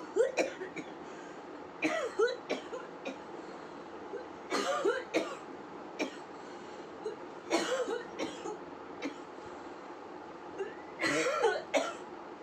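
A woman coughing in short bouts, about five of them spaced roughly three seconds apart.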